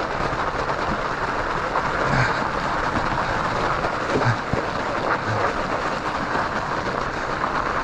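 Steady rush of wind and rolling noise from a fat bike's studded tires on ice and snow during a fast descent, with a few short low thuds as the bike hits bumps.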